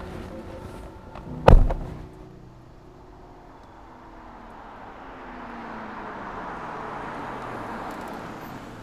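A car door shuts with a single loud thud about a second and a half in. Then a VinFast Lux A2.0 sedan's engine and tyres grow louder as it drives up, swelling from about four seconds in.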